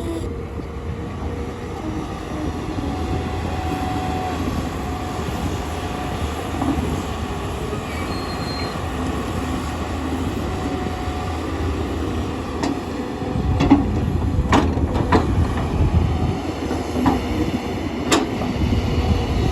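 Tata Hitachi hydraulic excavator working: a steady diesel engine drone with a faint hydraulic whine. In the last third it gets louder, with several sharp metallic knocks and clanks.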